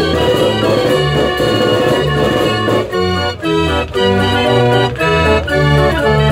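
48-key Limonaire Dutch street organ playing a tune, its pipes sounding a melody over bass notes that change about every half second, with a few brief dips between phrases.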